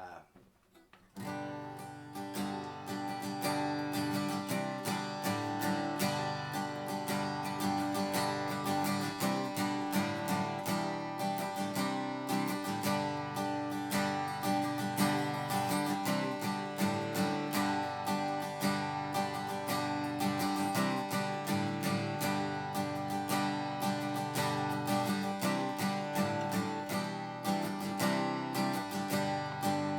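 Chinese-made replica of a Gibson J-160E acoustic guitar, with a Tusq saddle and stock strings, strummed through a run of chords from about a second in. The tone is mellow and soft rather than loud.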